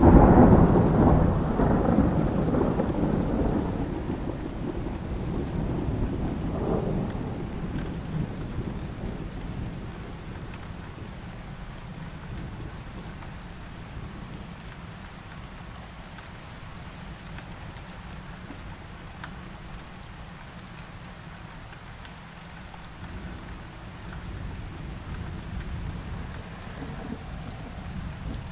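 Thunderclap that hits loud right at the start and rumbles away over several seconds, a second rumble about six seconds in, then steady rain.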